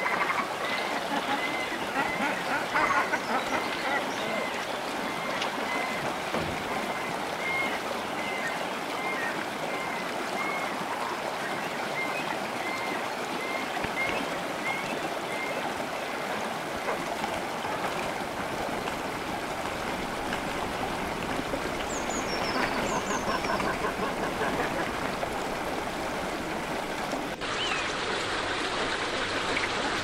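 Steady rush of flowing river water. Over it a bird repeats a short call note about twice a second through the first half, and a few high chirps come about three-quarters in.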